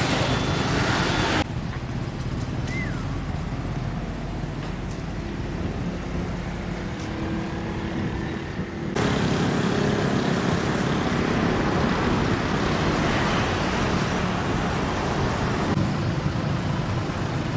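Outdoor traffic sound: a pickup truck's engine running and its tyres rolling as it drives slowly through a gateway, over a steady wash of road noise. The sound changes abruptly about a second and a half in and again around nine seconds, where the footage is cut.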